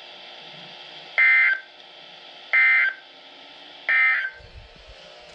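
Three short bursts of Emergency Alert System end-of-message data tones (the digital NNNN code) about 1.4 s apart, over a faint radio hiss. They mark the end of the alert message.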